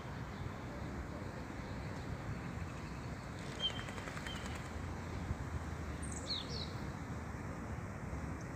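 Steady low outdoor background noise with a few short, high bird chirps: two single chirps between three and a half and four and a half seconds in, then a quick pair of falling calls a little after six seconds.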